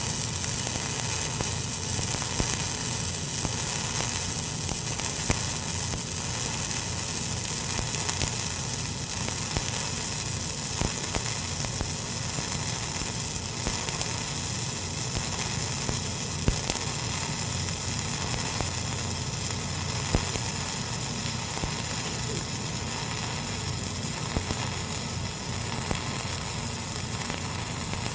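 Electric arc welding laying a fill pass: a steady crackling sizzle from the arc, with sharp pops scattered through it.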